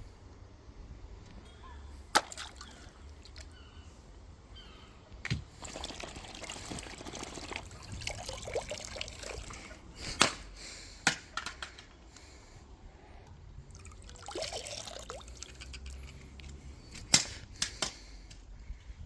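A plastic smoke alarm being smashed and broken apart: several sharp knocks spread out, with two longer stretches of broken pieces rattling and trickling.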